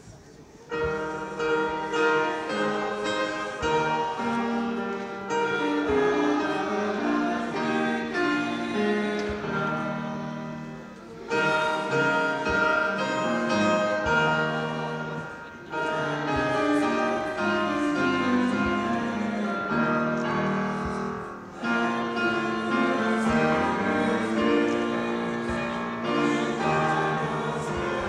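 Choir singing with piano accompaniment, in sustained phrases with brief breaks between them.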